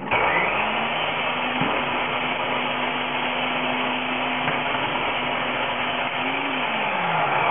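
Electric mini food chopper running with mushrooms in its bowl, a steady motor whine that spins up at the start and drops in pitch as the motor winds down near the end.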